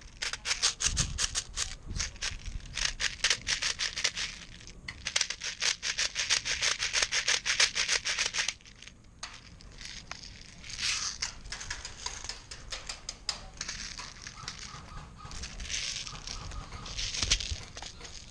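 An airsoft magazine being loaded: a fast, dense run of clicking for the first eight seconds or so. After that come quieter, scattered clicks and rustling.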